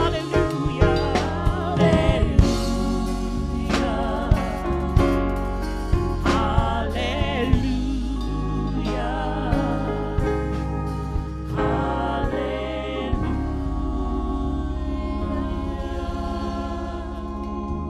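Two women singing a gospel song through microphones, their voices wavering with vibrato over instrumental accompaniment with drum hits. Near the end the singing gives way to held chords.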